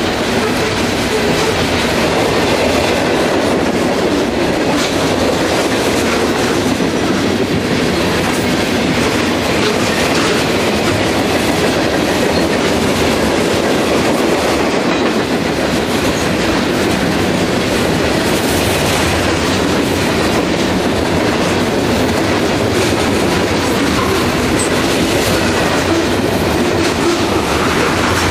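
Mixed freight train's covered hopper and tank cars rolling past close by: a loud, steady rumble of steel wheels on the rails.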